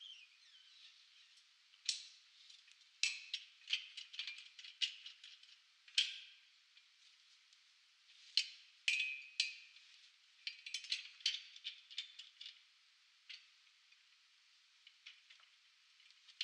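Metal clinks and rattles from a spring compressor being handled: the safety strap is released and the steel coil spring is lifted off the strut between the compressor's jaws. The sharp clicks come in irregular clusters, with a short lull about halfway through and only scattered clicks near the end.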